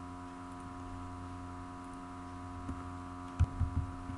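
Steady electrical hum made of several level tones, picked up by the recording setup. A few short, low knocks come about three and a half seconds in.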